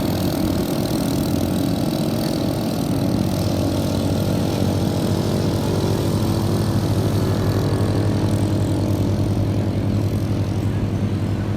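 A small motorbike engine running steadily nearby, its low hum growing stronger over the last few seconds, over a steady noisy hiss.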